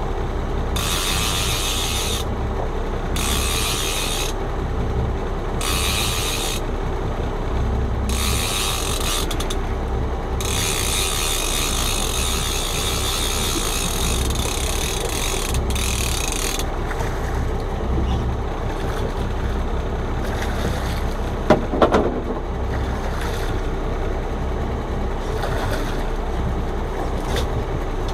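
Fishing reel being wound in to bring up a hooked fish, its mechanism clicking in spells about a second long with short pauses, then without a break until it stops about two-thirds of the way through. A boat engine hums steadily underneath, and a few sharp knocks come a little later.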